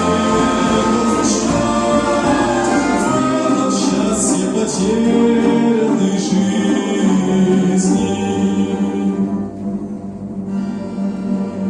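Choir singing a Christian hymn with a combined folk orchestra. About nine seconds in, the voices thin out and a long held chord carries on.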